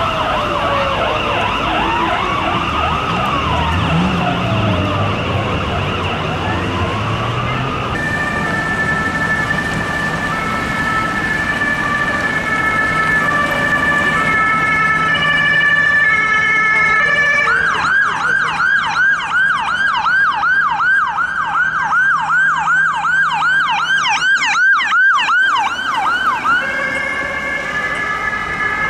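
Emergency vehicle sirens in changing patterns. First come several overlapping sirens wailing up and down. About 8 seconds in, a two-tone hi-lo siren takes over. It switches to a fast yelp, about three sweeps a second, for some nine seconds, then goes back to the two-tone near the end.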